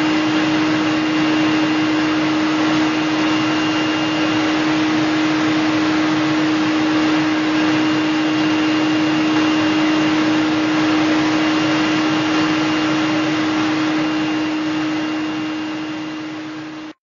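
Vacuum cleaner running steadily with a strong constant hum, its hose worked over a cat's fur. The sound fades a little near the end, then cuts off abruptly.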